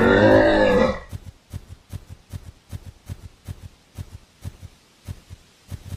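A deep, long animal bellow ends about a second in. Then comes a steady run of cartoon hoof footsteps, about three soft thuds a second, as a camel walks.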